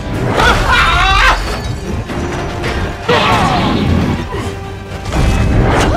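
Fight-scene soundtrack: music over crashing impacts, with a sudden hit about three seconds in.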